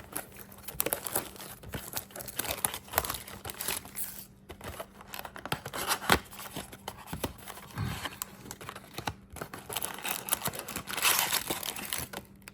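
Plastic wrapping crinkling and tearing as a trading-card blaster box is cut open and unwrapped, with scattered clicks and crackles; the crinkling gets louder for a moment near the end.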